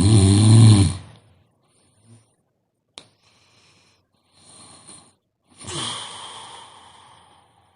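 A sleeping person snoring: one loud, low snore at the start, then a faint click about three seconds in, a quiet breath, and a longer, softer breathy snore that fades out near the end.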